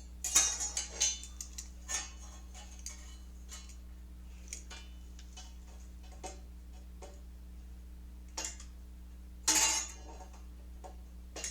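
Metal parts and tools being handled on a workbench: scattered light clicks and clinks, several close together in the first second, with a brief scrape or rush of noise about nine and a half seconds in, over a steady low hum.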